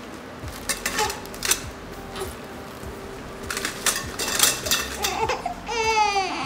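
Plastic-wrapped metal closet-frame tubes rustling and knocking together as they are handled and laid down on the carpet. Near the end a newborn baby starts crying, a high, wavering cry.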